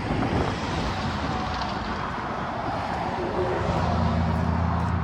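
A motor vehicle's engine running, heard as a steady rumble, with a low steady hum coming in about three and a half seconds in.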